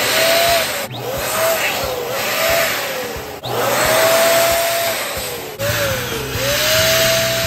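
Electric balloon inflator pump blowing air into latex balloons: a steady rush of air over a motor hum that climbs as the pump starts, holds, and sags before it stops. Four short runs follow one another with abrupt cuts between them.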